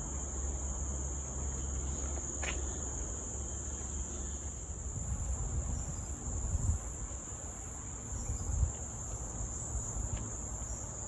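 Steady high-pitched drone of rainforest insects, crickets or similar, holding one even pitch, over a low rumble. Two dull low thumps come a little past the middle.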